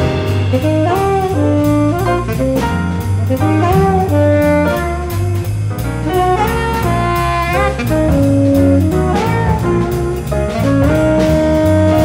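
Tenor saxophone playing a jazz solo line, with scoops and bends between notes, over bass and a drum kit keeping time on the cymbals. The saxophone settles onto one long held note near the end.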